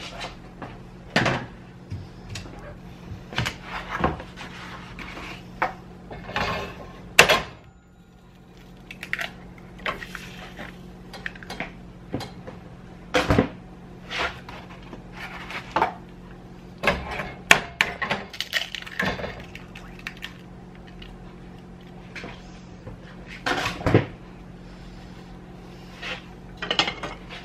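Kitchen handling sounds: scattered knocks and clinks of eggs being cracked into a nonstick frying pan and of dishes and utensils being set down, irregularly spaced, over a steady low hum.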